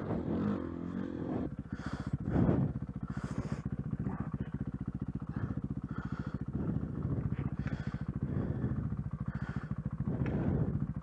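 Dirt bike engine running as the bike is ridden, a fast even stream of firing pulses with the throttle rising and easing, briefly louder a couple of seconds in.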